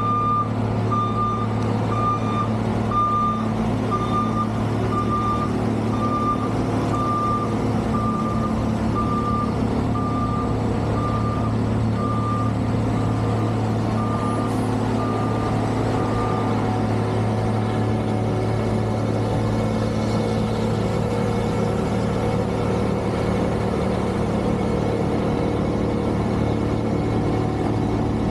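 Heavy snow-removal vehicle running with a steady low engine drone while its reversing alarm beeps about one and a half times a second. The beeping stops a little past halfway, and the engine keeps running.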